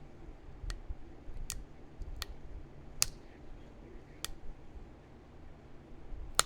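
Small flakes snapping off a heat-treated chert point under a pressure flaker: about six sharp, crisp clicks at uneven intervals, the loudest about three seconds in and near the end.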